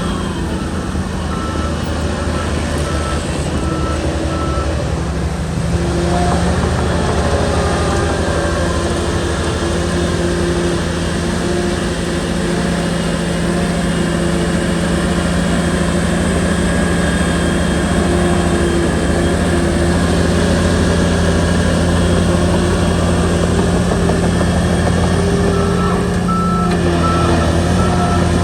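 Shantui bulldozer's diesel engine running steadily, pulling harder about six seconds in. A reversing alarm beeps in an even pulse for the first few seconds, stops, then starts again near the end.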